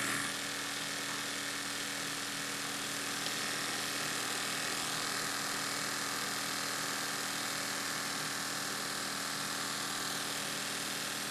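Electric fan running steadily: an even motor hum with a few steady tones under a constant rush of air from the spinning blades.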